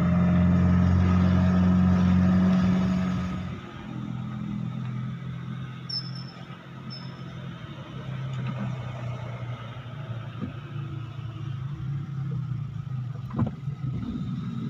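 Car engine heard from inside the cabin: a loud, steady drone for the first three or four seconds that then drops to a quieter hum with road noise. Two short high chirps come in the middle, and a single knock comes near the end.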